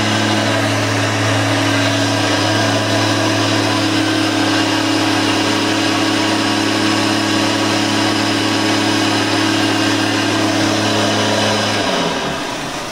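Hoover Elite 350 upright vacuum cleaner running steadily, a constant low motor hum under a broad whir. Near the end it is switched off and the motor winds down.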